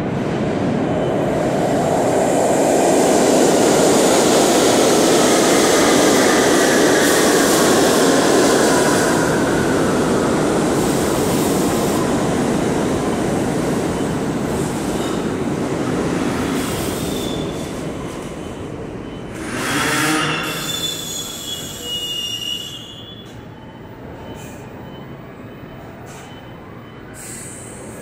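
New York City subway train running into the station on the far track, a steady rumble of wheels on rail with metal wheel squeal that glides downward in pitch. The noise is loudest in the first ten seconds, swells briefly with more squealing about twenty seconds in, then drops to a lower rumble.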